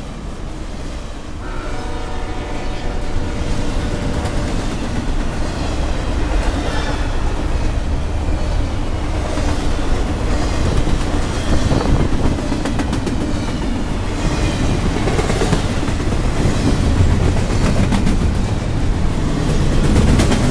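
Double-stack intermodal freight train rolling past at speed: a steady rumble and clatter of the well cars' wheels on the rails. The locomotive's horn fades out in the first couple of seconds.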